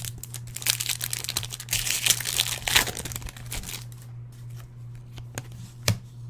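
Foil wrapper of a Topps Chrome trading-card pack crinkling and tearing open, a dense crackle lasting about three seconds, followed by a few light clicks.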